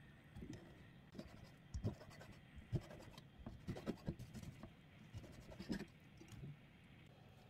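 Chef's knife slicing thawed raw chicken breast and thigh on a plastic cutting board: faint, irregular knocks of the blade meeting the board, with light scraping.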